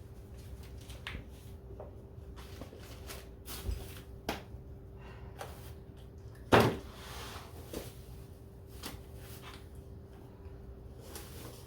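Light knocks and clicks of items being handled and set down on pantry shelves, scattered through, with one louder knock about six and a half seconds in, over a faint steady hum.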